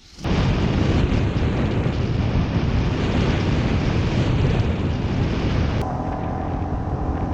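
Wind rushing over the microphone on a moving motorbike, with the engine running under it. The sound cuts in suddenly at the start, and about six seconds in the hiss eases and a faint steady engine tone shows through.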